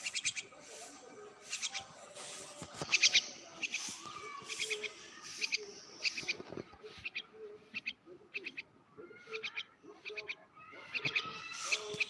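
Young myna calling: clusters of two to four short, sharp, high chirps, repeated every second or so.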